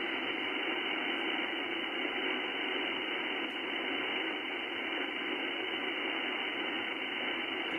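Icom IC-7610 HF receiver's speaker giving out steady hiss on an empty 20-metre frequency, cut off above and below like a voice-bandwidth filter. This is the raised band noise, about S5 on the meter, that the operator is trying to trace.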